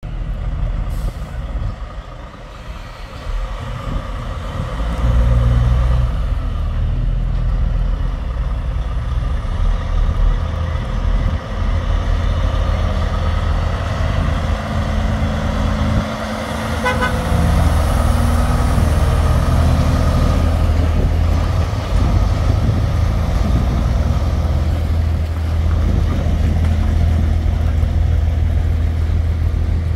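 Heavy diesel engine of a bonneted prime mover pulling a livestock-crate road train out onto the road. The engine grows louder as the truck accelerates and drives past. A short horn toot comes about halfway through.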